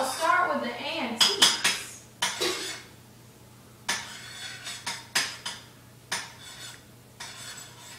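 Clothes hangers clicking and clacking against each other as clothes on them are handled, in irregular bursts of hard little knocks.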